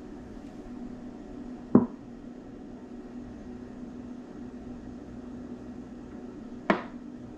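Handling of a plastic honey squeeze bottle over a blender jar: a dull knock about two seconds in, then a sharper click near the end. Both sound over a steady low hum.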